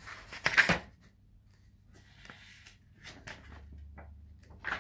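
Handling noise close to the microphone: a loud rustle about half a second in, then faint scattered clicks and rustles, and a short sharp one near the end.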